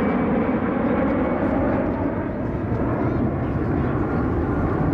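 Four-engine Airbus A340 jetliner climbing out overhead just after takeoff: steady, loud jet engine noise.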